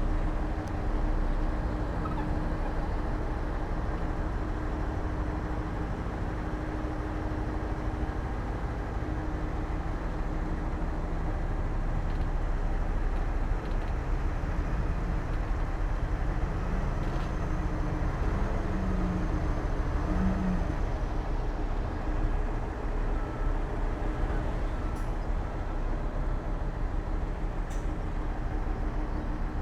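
Heavy diesel earthmoving machinery running steadily, a continuous low engine drone.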